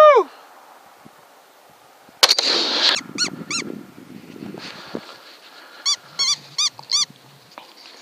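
A sharp crack about two seconds in, followed by a short rush of noise. Then a series of short, high-pitched yelps, each rising and falling in pitch, come in quick pairs and threes over the following seconds.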